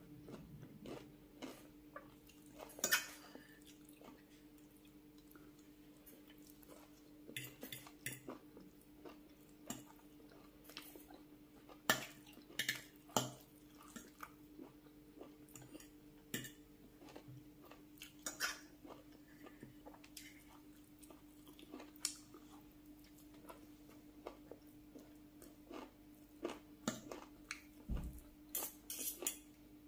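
Metal fork and spoon clinking and scraping against a glass bowl of rice and curry, in sharp irregular clicks a second or more apart, with soft chewing between. A faint steady hum runs underneath.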